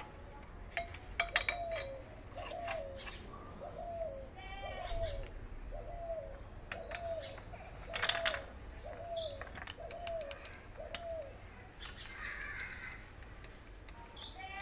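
A bird calling over and over, about a dozen short falling notes roughly one every three quarters of a second, stopping about 11 seconds in. Sharp metal clicks and taps from a spanner and bar working the diesel engine's tappets come in between the calls.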